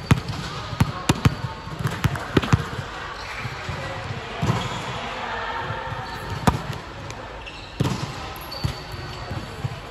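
A volleyball bounced on the hard court floor: a quick run of sharp slaps in the first few seconds, then a few separate knocks later on. Faint voices in the background.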